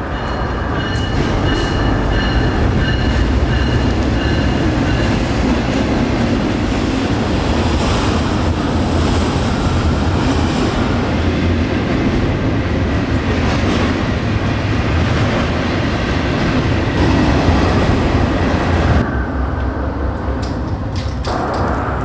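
Double-stack container freight train passing close by: a loud, steady rumble of rolling wheels with scattered clicks and clanks from the rails. A thin high squeal from the wheels is heard in the first few seconds.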